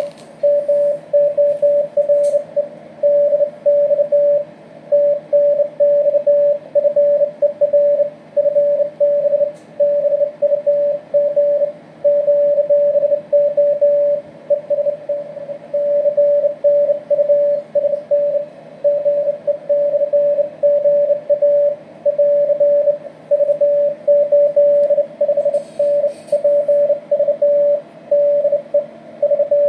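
Morse code in CW from a homebrew SDR transceiver: a single tone of about 600 Hz keyed on and off in dots and dashes without a break.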